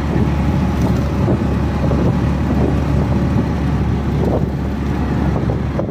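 Auto-rickshaw riding along a road: its small engine runs with a steady low rumble, with wind buffeting the microphone.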